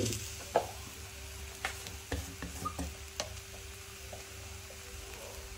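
Mashed potato and onion frying gently in oil in a clay kadai: a faint sizzle with a few scattered sharp clicks and pops, over a steady low hum.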